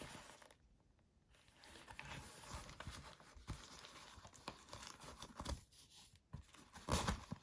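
Protective plastic packaging crinkling and rustling as it is handled and pulled off, with small clicks and a louder rustle near the end.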